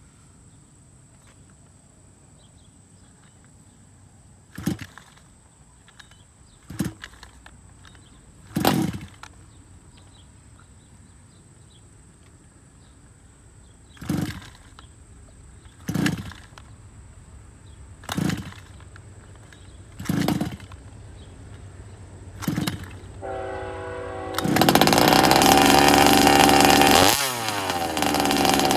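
Rovan Baja RC buggy's small two-stroke petrol engine being pull-started on choke: eight short pull-cord yanks spaced a second or two apart with pauses between, then it sputters and catches, running loud at high revs for the last few seconds with a brief dip in speed near the end.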